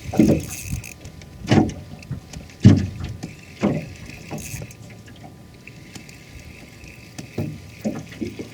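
Irregular hollow thumps and knocks on a small fishing boat, with a steady background hiss of wind and water; they come about once a second early on, pause, then return near the end.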